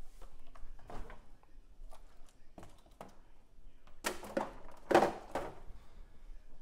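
Refrigerator door opened and a carton set inside, with scattered light knocks and rustles. The door is shut about five seconds in, the loudest knock.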